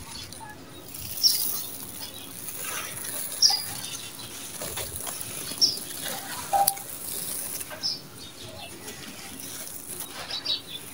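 Hands crumbling and rubbing a dry, gritty sand-and-cement mix with small stones, the grains crunching and trickling down.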